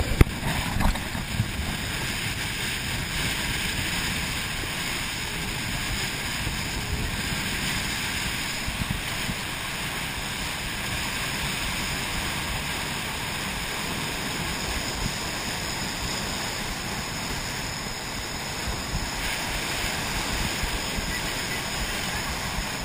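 Wind buffeting the microphone of a camera on a boat under way, with water rushing and splashing against the hull. A steady, unbroken noise with no clear engine note.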